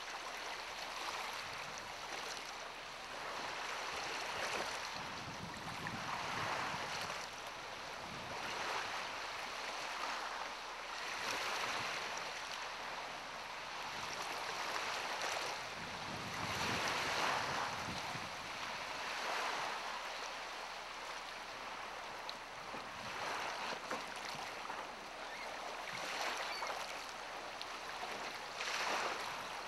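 Small waves on a choppy lake washing and lapping in surges every few seconds, with wind buffeting the microphone at times.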